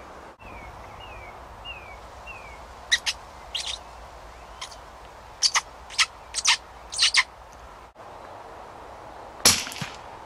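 Birds calling: four short falling whistles, then a run of sharp chirps. Near the end a single sharp crack, the loudest sound, from a .22 rimfire rifle shot.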